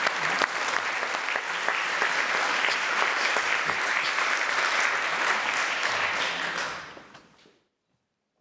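Audience applauding: dense, steady clapping that fades away about seven seconds in.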